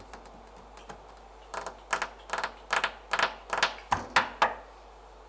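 Darbuka struck in sharp, crisp strokes. A few faint taps come first, then from about a second and a half in a run of about ten loud strokes, some in quick pairs.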